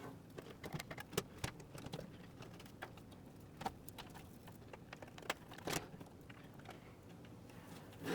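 Plastic power-cable connectors clicking and rattling as they are handled and pushed into the sockets of a fully modular Corsair RM750x power supply. Scattered short clicks, a few louder ones about a second in and past the middle.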